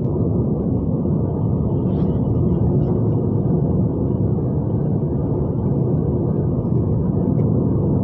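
Steady low rumble of a car driving along a road, heard from inside the car: tyre and engine noise at an even level.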